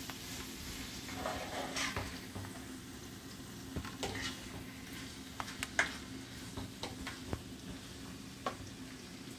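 Chopped peppers, onion and tomato sautéing in coconut oil in a frying pan, stirred with a spoon: a soft sizzle under scattered taps and scrapes of the spoon against the pan.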